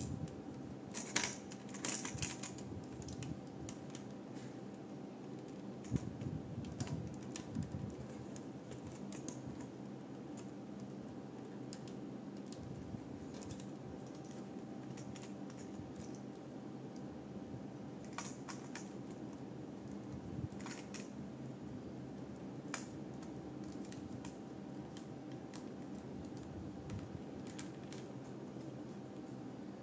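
Plastic LEGO bricks being handled and pressed together: scattered sharp clicks and taps, in clusters near the start, around a quarter of the way in and again past the middle, over a faint steady hum.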